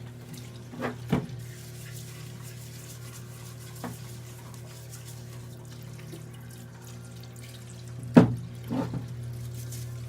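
Tap water running steadily into a sink, with a few sharp knocks and clunks of something being handled in it: one about a second in, one near the middle, and a louder pair near the end.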